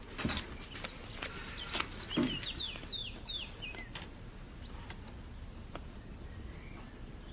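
Small birds chirping, with a run of short falling chirps in the first half and fainter chirps later, over low background hiss. A few soft knocks and rustles of movement in the room come in the first couple of seconds, as a woman in a long dress turns and sits on a wooden chair.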